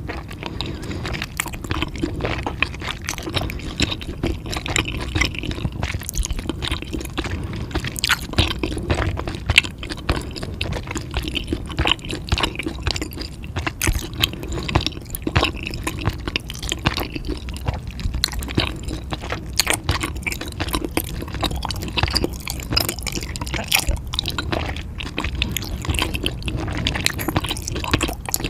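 Close-miked eating: wet chewing and squishing mouth sounds with many small sharp clicks, going on steadily.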